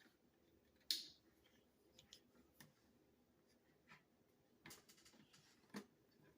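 Scattered light clicks and taps from plastic dispenser parts being handled and fitted, the sharpest about a second in and a small run of them near the end.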